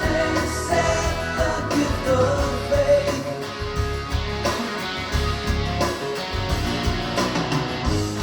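Rock music with a sung vocal, guitar and a steady bass beat, played through a car or home audio system.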